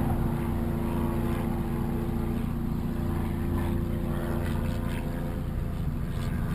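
A motor engine running steadily, a low, even hum that holds one pitch throughout.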